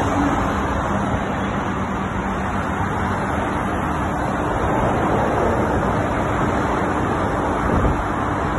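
Caterpillar 321 excavator's diesel engine running steadily with a low hum, under a constant wash of motorway traffic noise.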